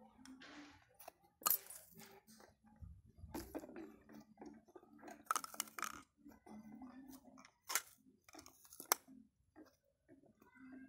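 Quiet, irregular crunching and clicking, with a few sharp knocks scattered through it.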